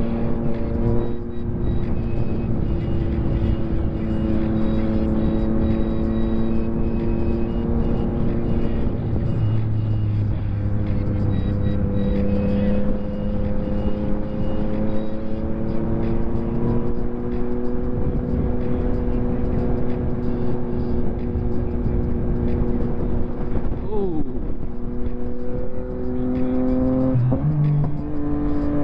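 Yamaha MT-09 SP's 890 cc inline-three engine through a full Akrapovic race exhaust, pulling under fairly steady throttle with the note drifting slowly up and down. Near the end the revs drop sharply, then climb again in short steps.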